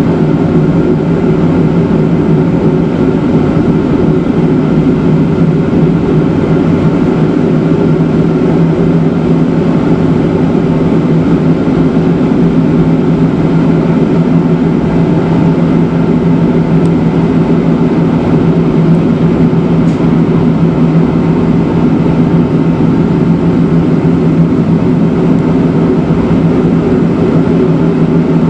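Matterhorn Gotthard Bahn rack-railway train running down the cogwheel section, a loud steady hum with several held tones from the drive and rack.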